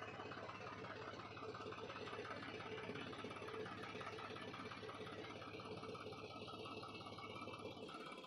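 Small motor running steadily and faintly, with a fast, even buzz.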